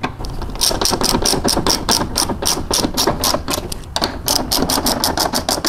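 Hand ratchet wrench clicking in a steady run of about five or six clicks a second as a fastener is turned in. It stops briefly about four seconds in, then the clicking resumes a little faster.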